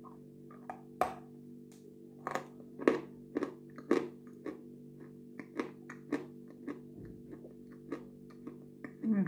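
Crunchy bites and close chewing of a dry, dusty white block, sharp crunches every half second to a second, over soft steady background guitar music.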